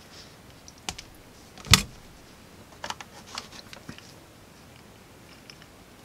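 Sharp clicks and snaps from hand tools working the bared wires of a microphone cable: side cutters snipping at the conductors and being handled. A single snap about two seconds in is the loudest, followed by a quick run of lighter clicks.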